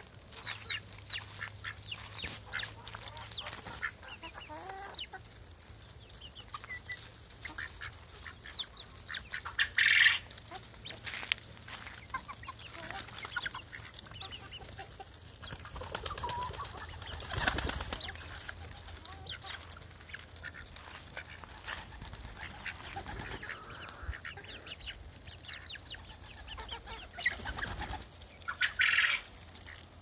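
Pigeons, chickens and a duck feeding together on scattered grain: wing flapping, hen clucking and many small ticks of pecking, with a few louder bursts of flapping wings.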